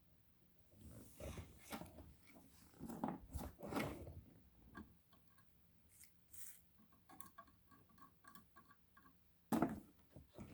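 Handling noises of hand work on a battery pack: irregular clicks, scrapes and rustles, a quick run of small ticks about four a second, and a sharp knock near the end.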